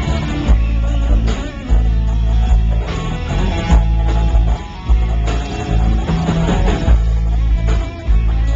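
Live band playing amplified rock music: strummed acoustic and electric guitars over bass and drums, with a heavy low end and steady drum hits.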